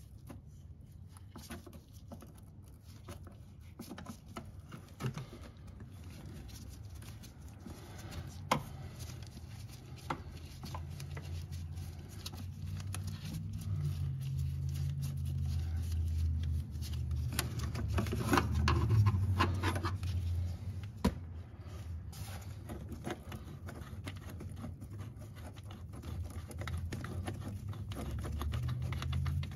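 Handling noise from a Phillips screwdriver and gloved hands working a car's fuel filter canister loose from its bracket: scattered small clicks, scrapes and taps, with a few sharper knocks. A low hum runs underneath and swells in the middle.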